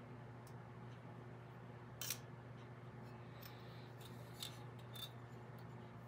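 Faint metallic clicks and taps of small steel hand tools working at the valve rocker arm of a Briggs & Stratton overhead-valve engine. The loudest is a quick cluster of clicks about two seconds in, with a few single clicks later, over a steady low hum.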